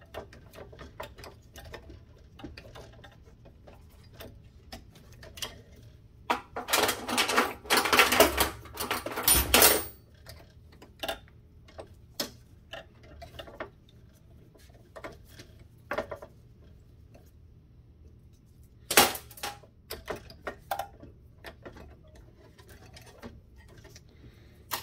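Hand tools clicking and clanking against the metal parts of a pump assembly being taken apart: scattered sharp ticks, a dense rattling run of clicks for a few seconds about a quarter of the way in, and one loud sharp clank about three-quarters of the way through.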